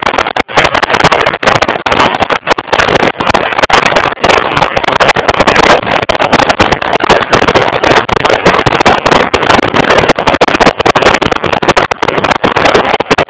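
Riding noise from a motorcycle-mounted camera: wind rushing over the microphone, loud and choppy, mixed with the motorcycle's engine and road noise at road speed.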